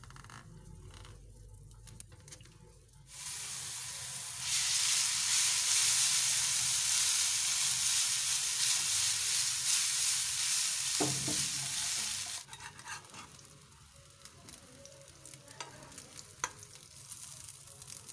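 Noodles with onion and green pepper frying in oil in a pan, a loud sizzle for about eight seconds in the middle while a spatula stirs them. Before and after it, quieter taps and scrapes of utensils on the pan.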